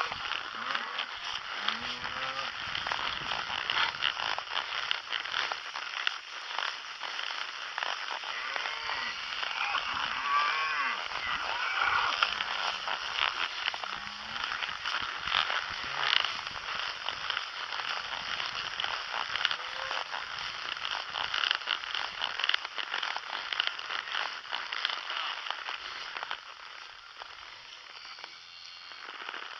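Cattle mooing now and then as cow dogs work them, over a steady crackling rustle.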